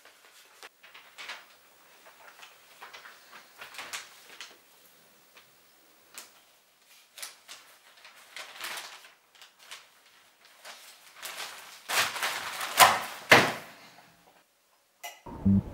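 Newspaper pages rustling and crinkling as they are handled and turned, louder for a couple of seconds near the end as the paper is folded and set down. Music with a steady beat starts just at the end.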